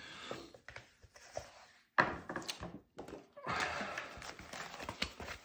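Keyboard box and packaging handled during unboxing: scattered clicks and handling noise, a sharp thunk about two seconds in, and a stretch of sliding, rubbing noise after it.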